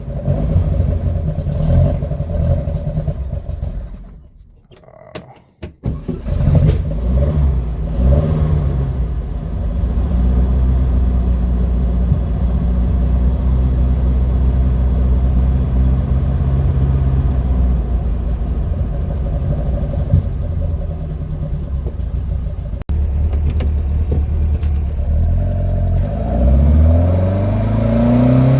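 A 1965 VW Beetle's air-cooled flat-four engine runs. About four seconds in, the sound drops away for a moment, then the engine comes back and runs steadily. Near the end the engine speeds up, its pitch rising as the car accelerates.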